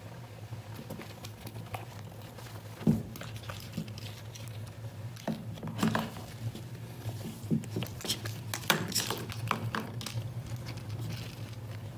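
A kitten batting a small plastic dental floss case across carpet and against a baseboard: scattered light knocks and scuffs, with sharper knocks about three, six and nine seconds in.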